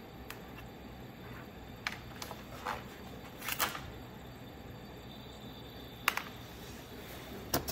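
A handful of light clicks and knocks, about seven, scattered over a faint steady hiss. They are handling noises at work.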